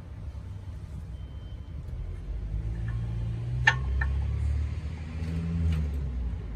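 Brake pads being fitted into a car's rear caliper bracket: one sharp metal click about halfway through, a lighter one just after and another near the end, over a low rumble that swells midway.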